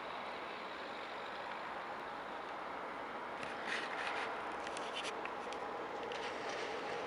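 Flytoget airport express electric train approaching from a distance: a steady hum that starts building near the end. A spell of crackling comes from about three and a half to five and a half seconds in, with a shorter one about a second later.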